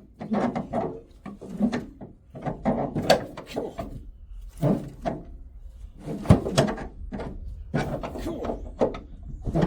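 Grey Ferguson tractor engine being turned over by hand with the starting handle: a string of irregular clanks and knocks from the handle and the engine's compression strokes, without the engine catching.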